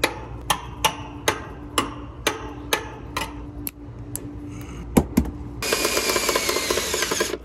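Perforated metal plumbing strap clicking sharply as it is bent back and forth by hand, about two clicks a second. About five seconds in come two louder knocks, and then a cordless drill runs for the last two seconds, driving a screw into the sheet-metal panel.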